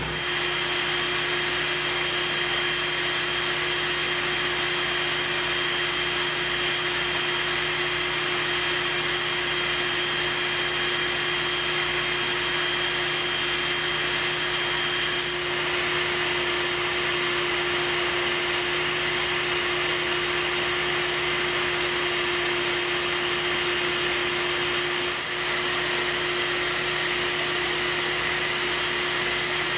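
Bee vacuum running steadily as honey bees are sucked off the comb in a wall; a constant motor noise and hum with two brief small dips.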